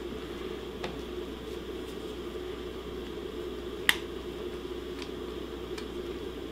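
Small cutters snipping and prying at the plastic housing of a Penny and Giles fader: a few faint clicks and one sharp snap about four seconds in, over a steady low hum.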